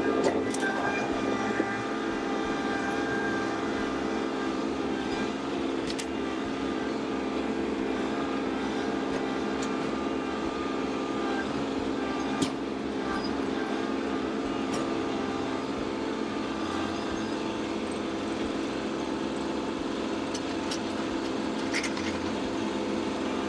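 Kubota LX2610 compact tractor's three-cylinder diesel engine running steadily as it works a hillside with the loader grapple, with a few sharp clicks at intervals.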